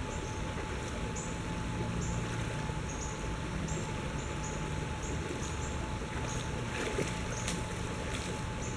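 Shallow river running over rocks in a riffle: a steady rush of water.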